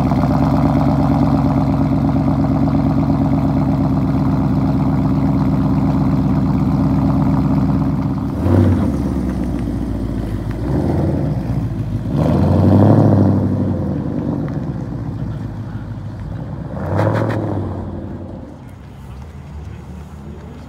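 A supercar engine running loudly close by for about eight seconds, then four separate revs or throttle blips, the biggest about thirteen seconds in, before the engine sound fades.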